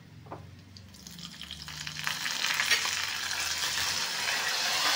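A ghee tempering of curry leaves, cashews, pepper and cumin sizzling and spluttering as something is added from a small bowl, most likely asafoetida. The crackling builds up from about a second in and grows steadily louder.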